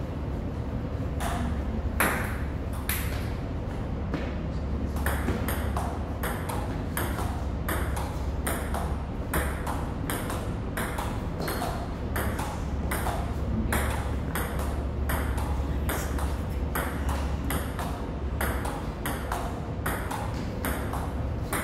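Table tennis ball clicking back and forth off bats and table in a rally, a sharp tock about every half second, over a steady low hum.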